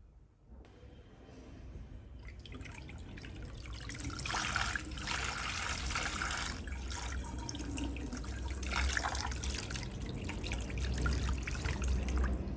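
Water running and splashing, growing louder over the first few seconds and then going on steadily.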